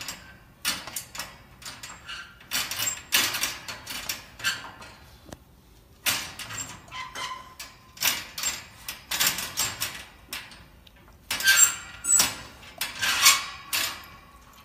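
Wire dog crate rattling and clicking in irregular bursts as a golden retriever paws at its bars and door from inside.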